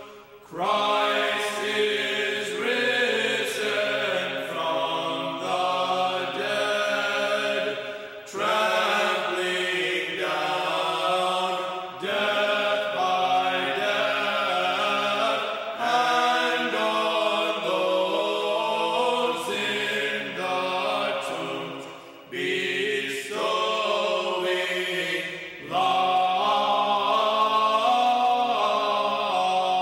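A choir sings liturgical chant in sustained phrases a few seconds long, with short breaks between them.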